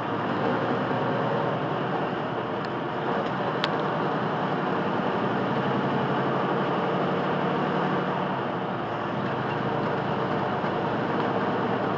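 Steady engine and road noise heard inside a truck's cab at highway speed, with a single short click about three and a half seconds in.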